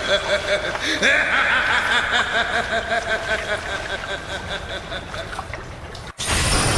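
A man laughing villainously: quick pulses of laughter, then about a second in a long drawn-out laugh that wavers and slowly fades. Near the end it cuts off sharply into a short loud rushing burst of noise.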